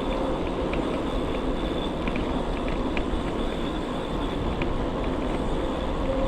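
1000 W rear hub motor of an e-bike giving a steady whine under power, over wind rush and tyre noise while riding. The whine fades in the middle and comes back near the end, with a few light ticks.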